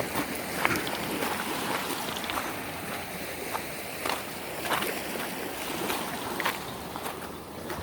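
Surf washing on a beach, with footsteps crunching about once a second.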